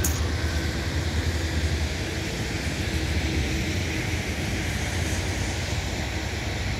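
Wind buffeting the microphone: a steady low rumble with an even hiss over it.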